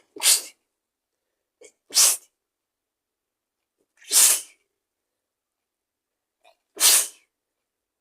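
A person sneezing four times in quick succession, about two seconds apart. Each sneeze is short and sharp, and most have a faint catch of breath just before them.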